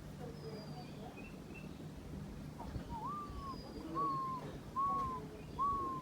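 Bird calling: four clear whistled notes, each rising quickly and then sliding slightly down, about one a second through the second half, with faint high chirps of other birds.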